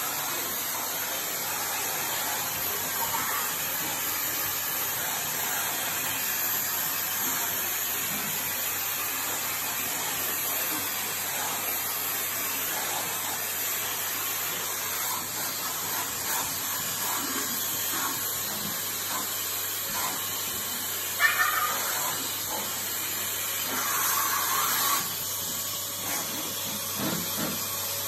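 Vacuum cleaner running steadily with a high hiss as its nozzle is drawn through a dog's fur, with a couple of short louder spells in the last third.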